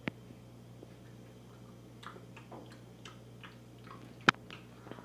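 Small plastic toy dishes and a toy spoon clicking and tapping together: a sharp click at the start, a scatter of light taps from about halfway, and one sharp louder click about four seconds in.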